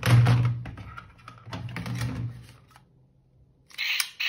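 Plastic toy guns clicking and rattling rapidly over a low buzz for about two and a half seconds, then stopping. Near the end a toy gun's electronic sound effect starts abruptly.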